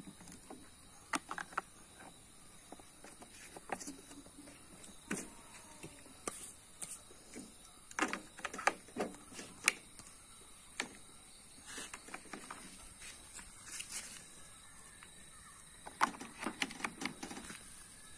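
Scattered light clicks, taps and plastic knocks from a plastic fuel bottle and the fuel tank of a Stihl MS 250 chainsaw being handled during refuelling, some in quick clusters. The engine is not running.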